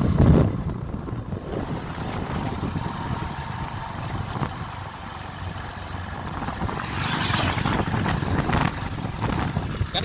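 Motor vehicle engine and road noise, running steadily with a low rumble, and a louder rush about seven seconds in as an oncoming small truck passes.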